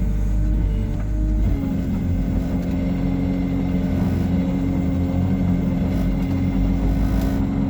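Hyundai R140W-7 wheeled excavator's diesel engine running steadily under work; about a second and a half in, its note changes, the deep rumble easing and a steady higher hum taking over.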